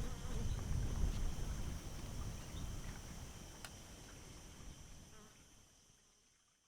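Outdoor ambience: a steady high-pitched insect drone with low wind rumble on the microphone, both fading out near the end.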